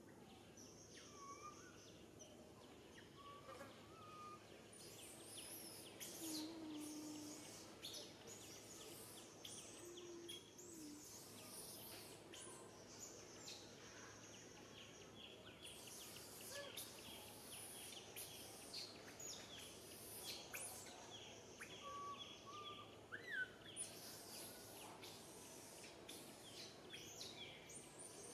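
Faint forest ambience: scattered bird chirps and calls with a high insect buzz that comes and goes.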